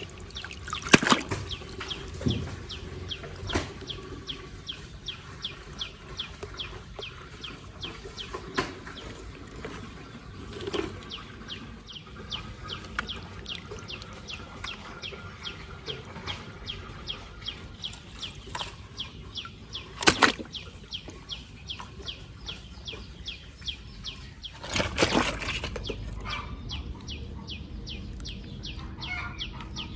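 Rapid, even clicking, about three clicks a second, with a few louder knocks and clatters: one about a second in, one around twenty seconds in and a longer clatter around twenty-five seconds.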